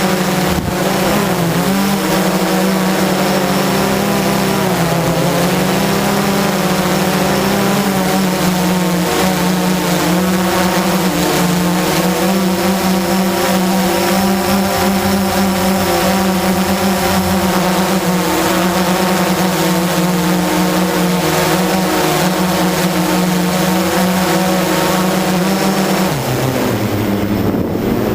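Blade 350 QX quadcopter's electric motors and propellers running in flight: a steady whine with a hiss of air, its pitch wavering with throttle in the first few seconds and dropping sharply near the end as the throttle comes down.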